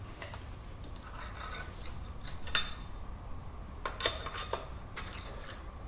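Steel parts of an Aciera F1 milling machine's removed spindle unit clinking as a long steel rod is drawn out of the spindle: a few sharp metallic clinks with a short ring. The loudest comes about two and a half seconds in, and two lighter ones follow around four seconds in.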